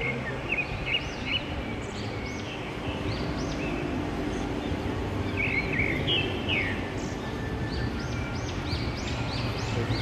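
Many small birds chirping, with short rising-and-falling calls repeated throughout, over a steady background din of a busy open plaza.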